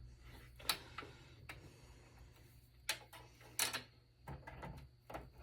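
Irregular sharp clicks and taps of metal and plastic desktop-PC parts being handled during disassembly, over a faint low steady hum.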